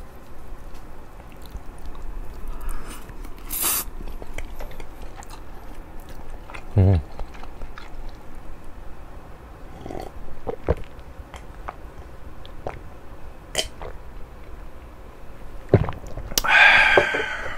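Close-up mouth sounds of a person chewing a mouthful of pasta, broken by scattered sharp clicks of a metal fork against a ceramic bowl. A louder, brief sound comes near the end.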